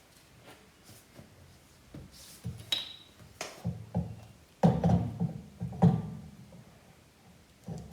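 Irregular clicks and knocks of hand tools and metal parts being worked at a car's rear brake and wheel, with the heaviest clunks about halfway through.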